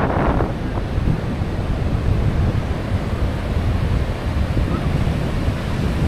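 Ocean surf washing onto a sandy beach as a steady hiss, with wind buffeting the microphone in a low rumble. A louder rush fades away in the first half second.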